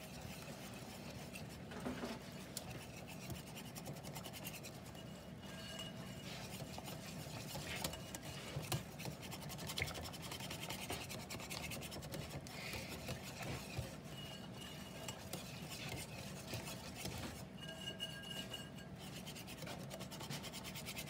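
Wire whisk beating pancake batter in a mixing bowl: a faint, steady scraping and swishing with light clicks of the wires against the bowl, as the lumps are whisked out into a smooth batter.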